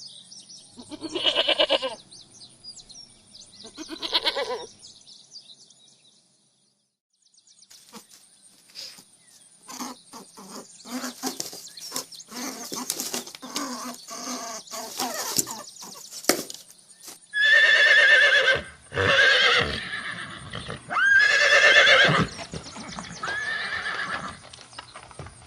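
Goat bleating, three calls in the first five seconds. After a short break come several seconds of rapid short knocks and sounds, then horses neighing, several loud whinnies one after another near the end.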